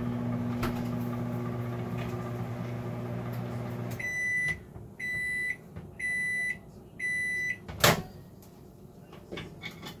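Microwave oven running with a steady hum that stops about four seconds in, then four high beeps about a second apart marking the end of the cooking cycle. Shortly after, a single loud sharp click as the door is opened.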